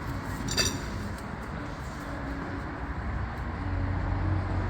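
Steady vehicle and road-traffic noise with a low engine rumble that grows louder near the end, and a single light click about half a second in.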